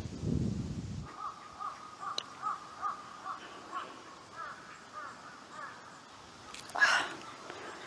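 A crow cawing over and over in a quick series, about two to three caws a second. A brief, louder sound comes near the end.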